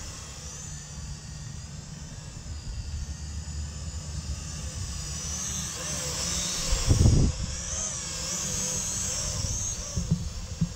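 Small toy quadcopter's four propellers whining overhead, the pitch wavering up and down as it maneuvers and getting louder as it passes close by in the middle. Wind rumbles on the microphone throughout, with a loud low buffet about seven seconds in.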